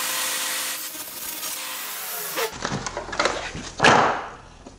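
Table saw blade cutting across a sheet of plastic laminate, a loud hiss over the motor's steady hum that stops abruptly about two and a half seconds in. Near the end a sheet scrapes as it slides across the saw's steel table.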